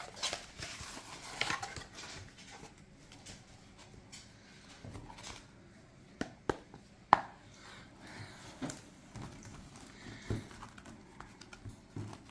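Quiet handling sounds as a tarot card deck is fetched and picked up: a handful of light taps and clicks spread over several seconds, the sharpest about seven seconds in.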